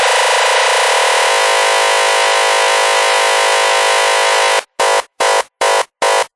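Electronic techno loop with the bass filtered out: a dense, buzzing synth drone that shifts in tone twice early on. Near the end it is chopped into regular stutters about two and a half times a second, building toward a drop.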